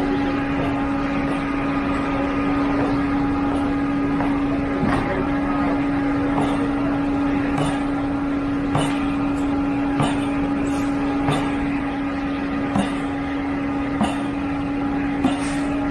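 Concrete pump truck's engine running at a steady speed, a constant drone, with a faint knock about every second and a bit through the second half.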